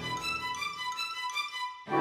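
Background music: a soft passage of held high notes with no bass, dropping out briefly near the end before a louder section begins.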